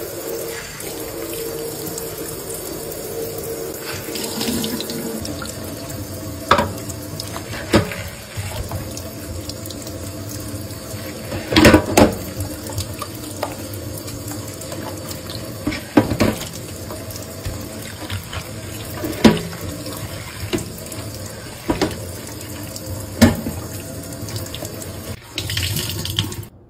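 Kitchen tap running into a stainless steel sink while it is washed, with several sharp knocks and clunks against the metal every few seconds. The sound cuts off suddenly near the end.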